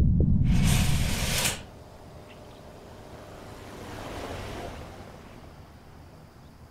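Window roller shutter being pushed up, heard as a rush of noise lasting about a second, over a loud low rumble that cuts off with it about a second and a half in. Then soft steady hiss.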